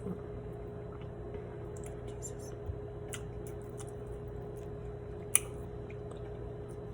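Light clicks and taps from handling and picking at salmon with eating utensils, over a steady low electrical hum, with one sharper click about five and a half seconds in.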